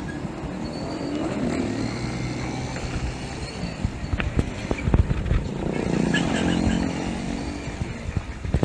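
A motorcycle engine running just ahead, swelling louder and rising and falling in pitch twice, over a constant low wind rumble on the microphone, with a few sharp knocks about four to five seconds in.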